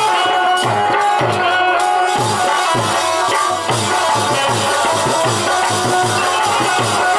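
Indian folk music: a harmonium holds sustained notes over a fast, steady hand-drum beat whose low strokes fall in pitch.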